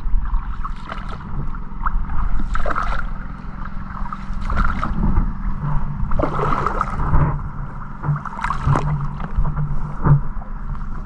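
A paddle working the water beside a coracle (round basket boat) under way, with splashes and sloshing coming in bursts about every two seconds over a steady low hum.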